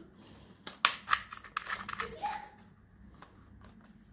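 Clicks and snaps of a plastic car phone holder being handled and its parts pressed together: a quick run of sharp clicks in the first two seconds, then a few fainter ones.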